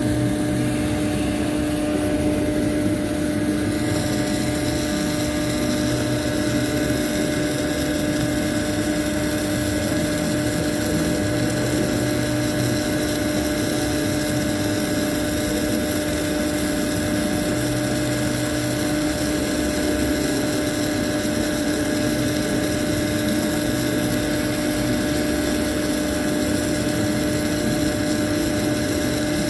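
Steady mechanical drone with a constant low hum over an even hiss, unbroken throughout.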